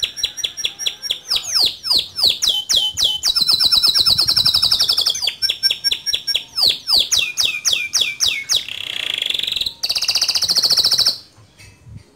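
Male canary singing a long, continuous song of rapid repeated notes, sweeping phrases and rolling trills, changing phrase every second or two, then stopping abruptly about eleven seconds in.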